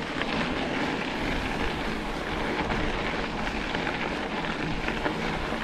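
Steady rushing noise of a mountain bike rolling along a dirt trail: knobby tyres on dirt and gravel with wind on the camera's microphone, and a few small clicks and rattles from the bike.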